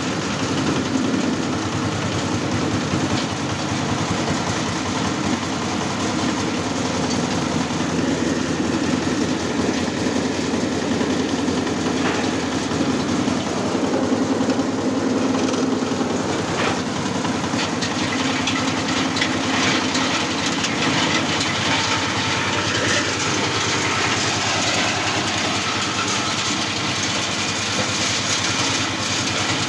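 Engine-driven areca nut dehusking machine running steadily while it dehusks oven-dried young areca nuts, with scattered short clicks from the nuts and husks, more of them in the second half.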